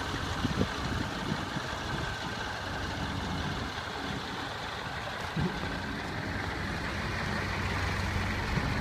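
MAN truck's diesel engine idling with a steady low hum, and a few dull thuds along the way.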